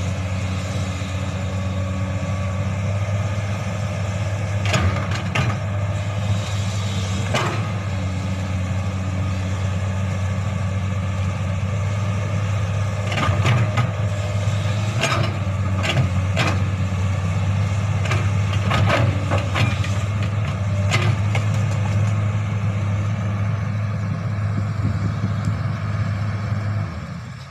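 Crawler excavator's diesel engine running steadily as it digs earth, with about a dozen short sharp knocks and clanks from the bucket and arm at irregular moments.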